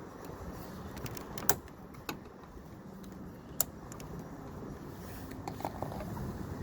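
A few sharp plastic clicks from hands and a tool working at the door-handle cover's retaining clips, three distinct snaps over a steady low background noise.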